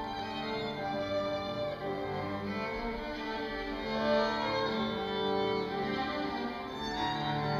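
Violin and cello playing classical chamber music together in long, held bowed notes.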